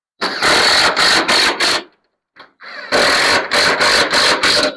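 Cordless power drill driving screws through a gutter guard into the gutter, in two runs of about two seconds each, each broken by several brief stops.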